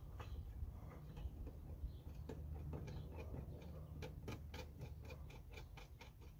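Small, quick metallic clicks, about six a second for a second and a half in the second half, from a nut being worked onto the stud of a rear-glass hinge bracket by hand, with a few scattered clicks earlier and a low steady hum underneath.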